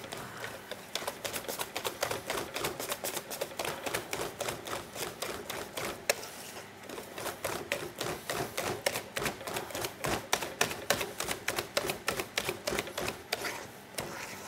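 Wire balloon whisk beating thick cake batter in a stainless steel bowl: a rapid, uneven run of clicks and taps as the wires strike the bowl, mixing the batter until smooth.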